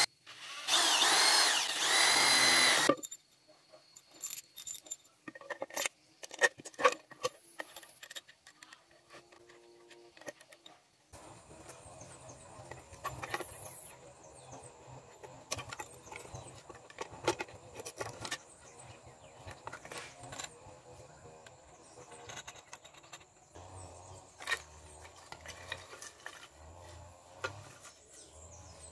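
Electric drill boring through a green bamboo pole, running in a loud burst during roughly the first three seconds and then stopping. After that come scattered knocks and clicks as the hollow bamboo poles are handled and fitted together.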